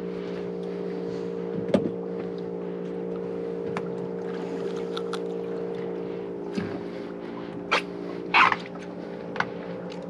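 Boat's outboard engine idling, a steady low hum, with a few sharp clicks and knocks scattered over it, more of them in the last few seconds.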